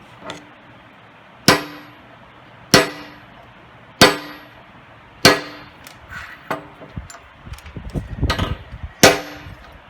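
Metal tapping: five sharp, ringing blows on an Autolite 4100 carburetor's warped power valve cover, spaced about a second and a quarter apart, to flatten it. Lighter taps and a short clatter come between the last two.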